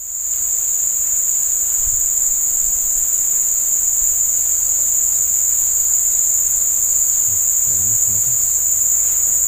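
Steady, high-pitched drone of a chorus of insects, a shrill whine held at an even level.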